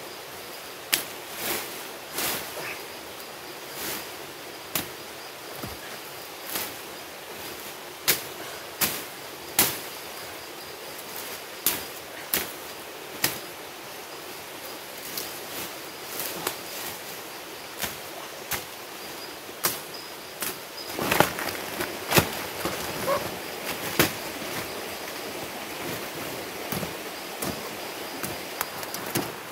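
Sharp, irregular chopping strikes of a blade cutting into undergrowth and roots while clearing ground, about one a second, coming in a quicker flurry about two-thirds of the way in.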